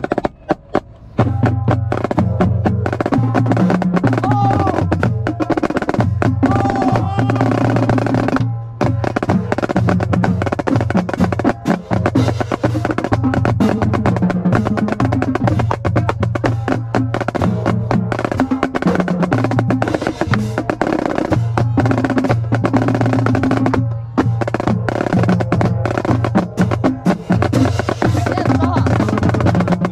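Marching snare drum played in fast, dense strokes and rolls over music with a pitched bass line, starting about a second in. Two brief breaks occur along the way.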